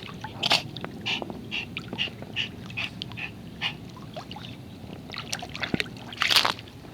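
Water splashing and sloshing around a Miniature Pinscher as she dunks her head under in a pool. There are short splashes about twice a second, then a louder burst about six seconds in.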